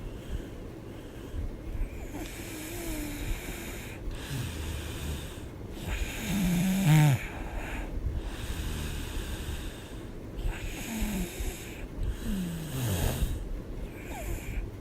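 A woman snoring hard in her sleep, one snore every couple of seconds. The loudest snore comes about halfway through, and several snores drop in pitch as they go.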